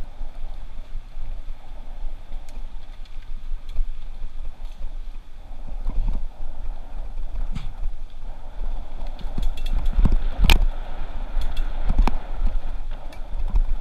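Mountain bike riding over a dirt forest trail, heard through a handlebar-mounted camera: a steady rumble of tyres and wind noise, with rattles and clunks as the bike hits bumps. The loudest clunk comes about ten seconds in.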